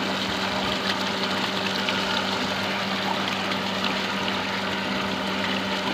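Shallow tube-well pump running with a steady hum while its water gushes out of the outlet pipe, splashing over a sack and into the pond.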